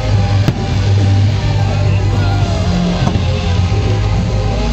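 Loud music with a heavy, steady bass, with a single sharp firework bang about half a second in.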